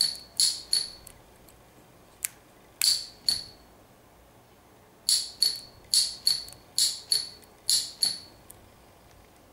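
Small push-pull frame solenoid snapping as a push-button control circuit fires it, in a test of the trigger for a homemade airgun hammer valve: sharp metallic clicks, mostly in pairs about a third of a second apart. A pair comes near the start, a single click at about two seconds, another pair at about three seconds, then four pairs in quick succession from about five seconds.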